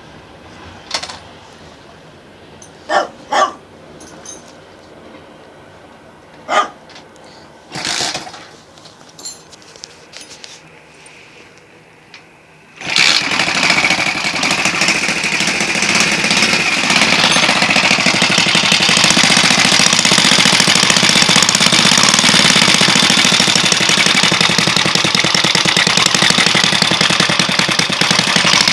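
Alpha moped's single-cylinder engine starting about halfway through and running with a loud, fast, even knock. The knock persists even though a new piston kit and cylinder head have been fitted and the timing marks set, and its cause is unknown. Before the engine starts there are a few short sharp sounds.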